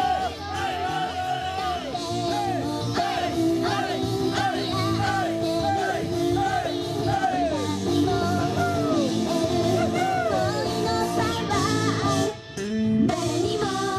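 Japanese idol-pop song performed live, with a group of young women singing over a full accompaniment. The music breaks off briefly near the end, then comes back in.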